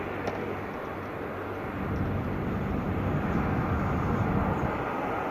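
Strong sandstorm wind rushing and buffeting the microphone in a steady noisy rumble that grows a little louder about two seconds in.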